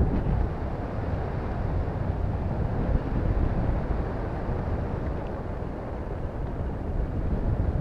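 Wind buffeting the microphone of a camera hanging from a high-altitude balloon's payload train: a steady low noise that rises and falls a little, with a faint tick about five seconds in.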